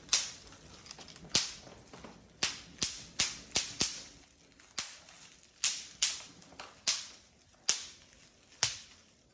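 Bubble wrap cells popping one at a time: about thirteen sharp, irregularly spaced pops, like popcorn or cap-gun shots.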